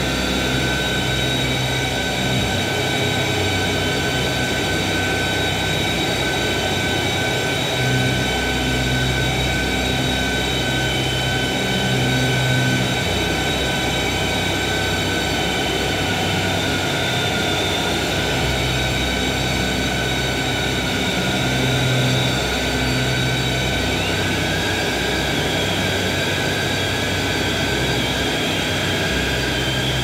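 Experimental drone music from a bowed, amplified violin: a dense, steady wall of noise with several high tones held throughout, and low notes that swell in and drop out every few seconds.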